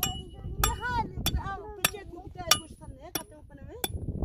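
A hammer striking metal in a steady rhythm, about one blow every 0.6 seconds, each blow ringing briefly.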